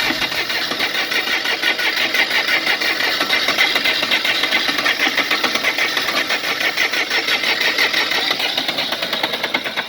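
Bobcat 453 skid-steer's engine being cranked by the starter in a rapid, even rhythm, turning over steadily but never firing. The owner suspects the battery is low.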